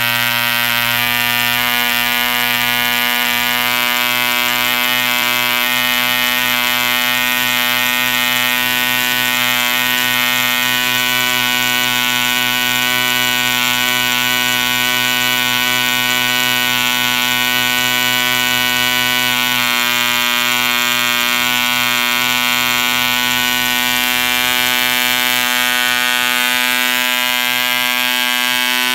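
A David Owen Mate 2cc model diesel engine running steadily at one even pitch, its propeller turning.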